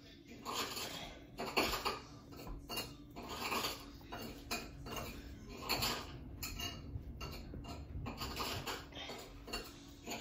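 A butter knife slicing pats off a block of butter, about a dozen short scraping strokes at roughly one a second.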